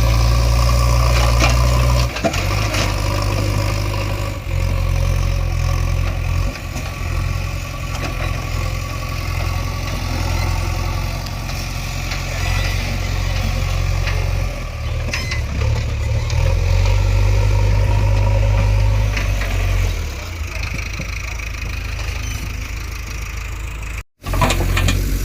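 JCB 3DX backhoe loader's four-cylinder diesel engine running as the machine works, its note shifting in level every few seconds as the load changes, with a few knocks from the machine. The sound cuts out for a moment near the end.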